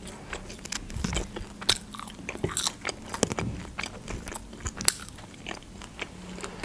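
Close-miked chewing of French fries dipped in garlic sauce: irregular wet mouth clicks and smacks with some soft crunching. A faint steady hum sits underneath.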